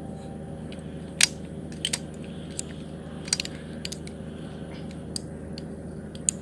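Telescoping aluminium ladder being collapsed section by section: sharp clacks as the rungs drop and lock together, the loudest about a second in, then a scattering of lighter clicks, over a steady low hum.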